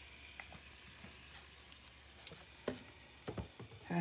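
Handling noise: several light clicks and knocks, more frequent in the second half and loudest right at the end, over a faint steady hiss.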